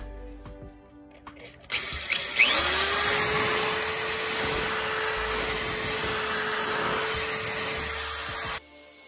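Power drill spinning a small wool buffing ball against a jet ski's gelcoat hull to buff out oxidation. It starts a couple of seconds in with a whine that rises quickly to a steady pitch, runs steadily, and cuts off suddenly near the end.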